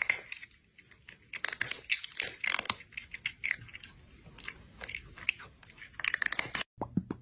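A cat chewing food with crunchy, irregular bites in quick succession, loudest in a burst near the end before stopping abruptly.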